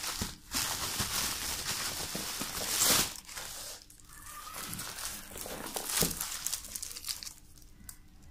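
Plastic bubble wrap crinkling and rustling as it is pulled away from a boxed tablet. The rustling is loudest about three seconds in and dies down near the end.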